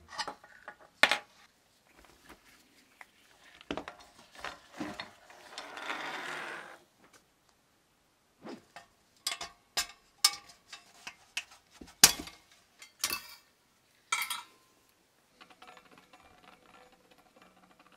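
Scattered metal clicks, clinks and knocks as parts of a 1930s Calor copper-and-cast-iron electric heater are unscrewed and taken off, with a longer scraping rub about six seconds in.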